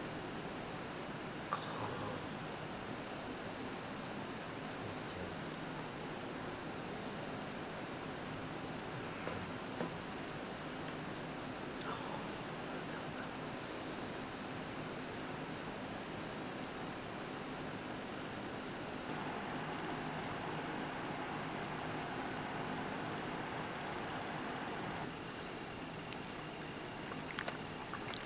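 Insects trilling and chirping in evenly repeating pulses over the steady rush of creek water; about two-thirds of the way through, a second, lower pulsing insect call joins for several seconds.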